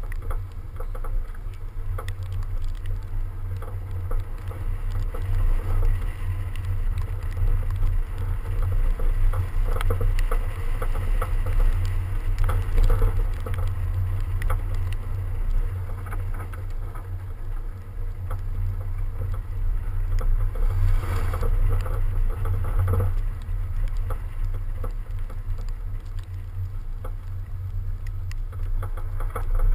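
BMW 335d driving hard on packed snow, heard from a camera mounted low on the car's flank: a steady low rumble of wind buffeting the microphone, with tyres and thrown snow hissing and pattering against the body, swelling in surges.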